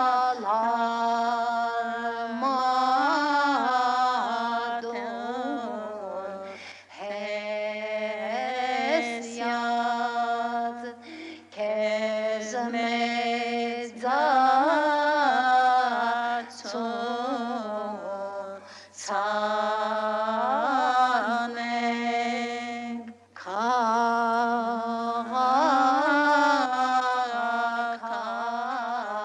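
Chant-like singing from a film soundtrack, with long ornamented, wavering notes in phrases a few seconds long, broken by short pauses for breath.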